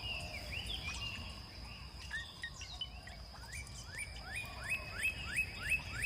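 Outdoor wetland ambience: a bird calling in short rising chirps, scattered at first and then in a quick run of about three a second in the second half, over a steady high insect drone and a low rumble.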